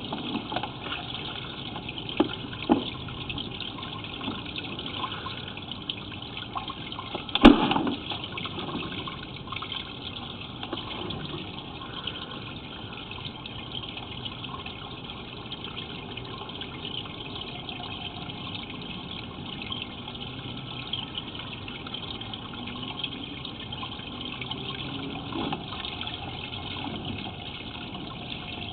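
Steady rush of running water in a cast iron sewer line, with a few sharp knocks, the loudest about seven and a half seconds in.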